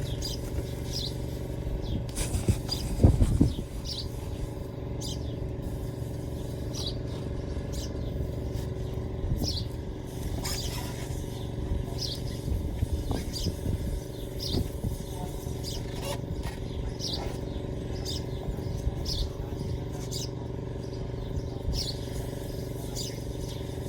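A steady engine hum, with a bird chirping over and over and a brief metallic clatter about three seconds in.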